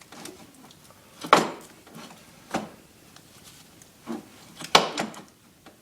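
About five sharp, irregular knocks and clanks of metal parts and tools being handled while the swing arm bolts and linkage are fitted.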